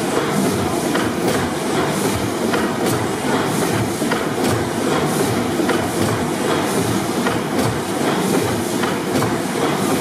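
600 HP Snow pipeline compressor engine, a large four-stroke double-acting gas engine, running steadily in its engine room: a continuous mechanical din with regular sharp clicks from the engine's working parts.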